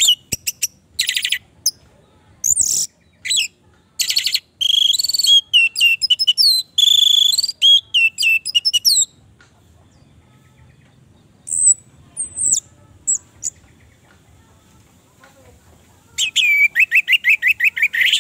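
Orange-headed thrush (anis merah) singing: a fast, loud run of varied whistled and chattering phrases for about the first half, then only a few scattered short notes. Near the end it breaks into a rapid series of repeated falling notes, about six a second.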